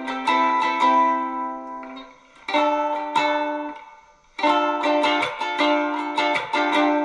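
Homemade redwood ukulele strummed, heard through its pickup: chords left ringing and fading away twice in the first half, then brisk, even strumming from about four seconds in.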